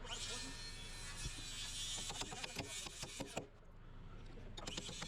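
Rapid mechanical clicking, like a ratchet, over a hissing noise; it stops briefly past the middle and starts again near the end.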